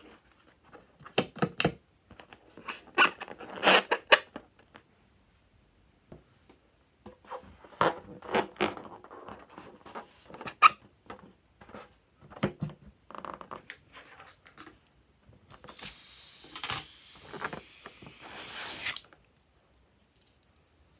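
Hands handling a liquid-filled rubber balloon: rubber rubbing and squeaking in short, irregular bursts. Near the end comes a steady hiss lasting about three seconds.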